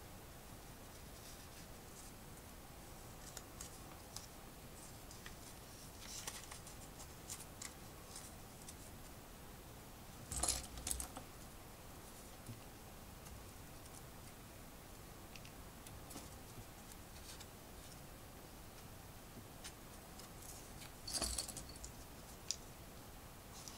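Plastic LEGO pieces clicking and rattling as they are handled, with scattered small clicks and two louder clatters, one about ten seconds in and one near the end.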